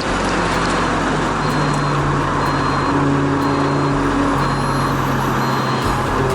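Lotus Elise Sport 220 II running at speed on track, heard from inside the car: steady engine, road and wind noise, with background music mixed in.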